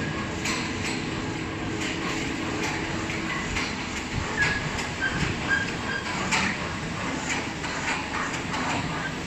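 Automatic foam punching press line running: a steady mechanical hum scattered with knocks and clicks. A low steady tone in the hum stops about three seconds in.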